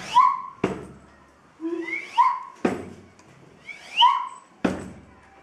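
A short whistled chirp that slides up in pitch, repeated three times about two seconds apart, each chirp followed about half a second later by a sharp click.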